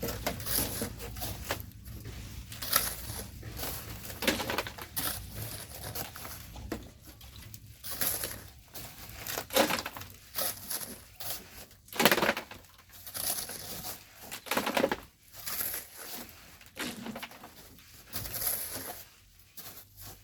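Hand tools digging into volcanic sand and gravel: irregular gritty scrapes and crunches, a second or two apart.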